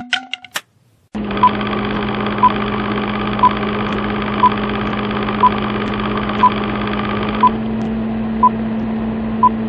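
A few quick clicks, then a steady machine-like hum with a short high beep once a second. The hum thins slightly near the end.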